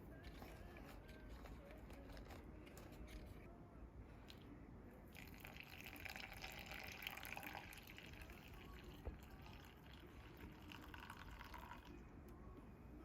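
Water poured in a thin stream, running for several seconds from about five seconds in, with a few drips around it.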